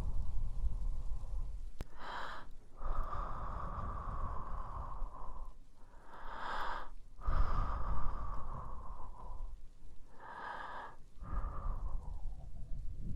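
Slow, close ASMR breathing and ear blowing: three short inhales, each followed by a long exhale of two to three seconds blown onto the microphone, which makes the exhales rumble.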